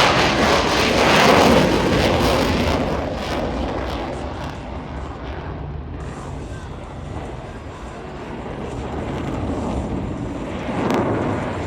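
F-22 Raptor's twin jet engines passing: a loud jet noise that fades away over the first several seconds, then swells again shortly before the end.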